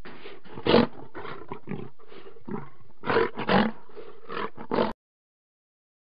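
Lion giving a run of short roars, loudest about a second in and twice around three to three and a half seconds in, cutting off abruptly about five seconds in.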